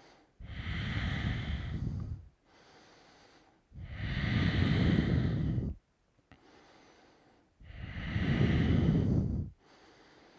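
A man's deep, slow yoga breathing: three long, loud breaths about four seconds apart, with quiet pauses between.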